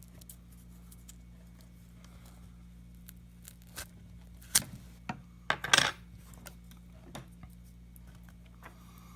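Small clicks and handling noises of hands working an electric match into a firework shell's fuse, with two louder short rustling bursts about four and a half and six seconds in.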